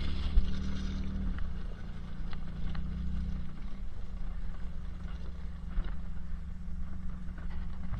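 Four-wheel-drive truck engine running steadily at low speed, heard from inside the cab as it crawls over a stony beach, with a few faint clicks.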